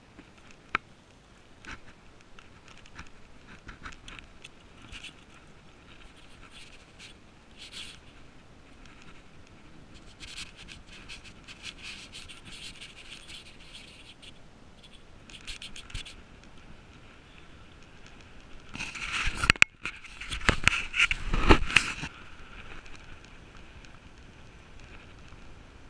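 GT Aggressor mountain bike rolling along a paved road: scratchy rattles and clicks from the bike, with a louder stretch of scraping noise about 19 to 22 seconds in.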